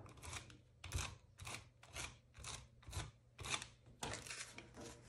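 Quiet paper handling on kraft cardstock: a steady run of short, scratchy strokes, about two a second, which stop at the end.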